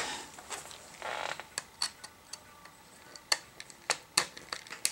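Small metal parts of a laptop hard drive being handled and pried at: a brief scrape about a second in, then a string of sharp, irregular clicks and ticks.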